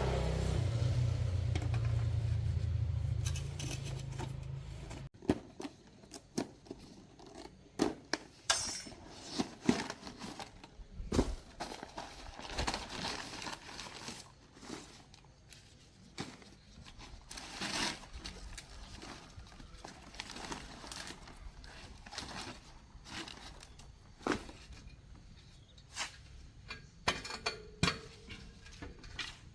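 A steady low hum that cuts off about five seconds in, followed by scattered light clicks, knocks and rustles of hand work with tools and parts.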